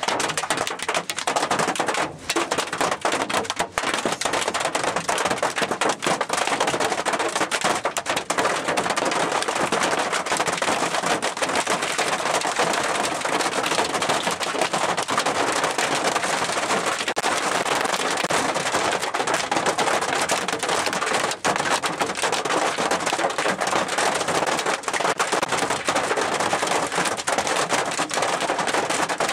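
Hail and heavy rain pelting down: a dense, steady crackle of many small impacts striking the ground and roofs.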